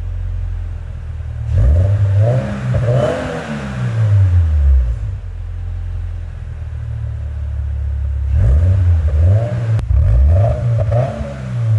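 A 2022 Toyota GR86/Subaru BRZ's 2.4-litre FA24 flat-four idles through a Kakimoto Regu 06 & R cat-back exhaust. It is revved up twice, about two seconds in and again near the end, and drops back to a steady idle each time. The exhaust is the quietest of the ones compared and possibly quieter than stock.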